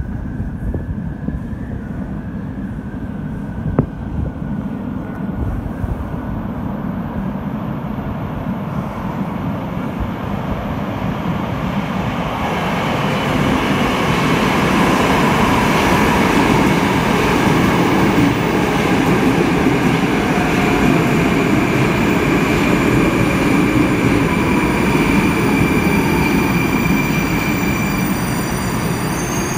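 Moskva-2020 metro train arriving at an underground station: its rumble grows out of the tunnel and gets much louder about halfway through as it runs in along the platform, with a high whine that falls slightly in pitch as it slows. A single sharp click about four seconds in.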